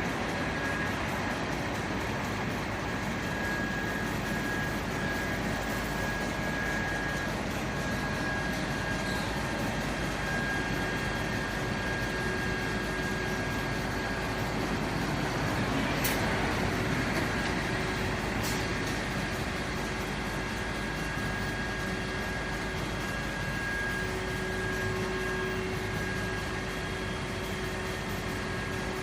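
Steady motor-vehicle engine and traffic noise with a faint steady high tone running through it, and two sharp clicks about sixteen and eighteen seconds in.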